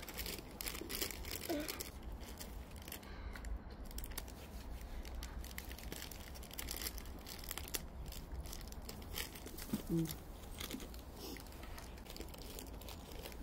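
Plastic snack wrapper crinkling and being torn open, crackling most densely in the first few seconds and then in scattered rustles, over a steady low rumble.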